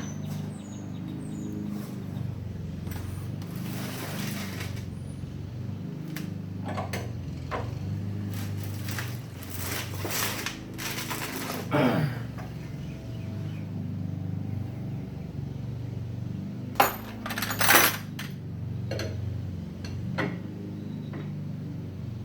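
Metal tools clinking and clanking now and then, with a few louder sharp knocks, over a steady low hum.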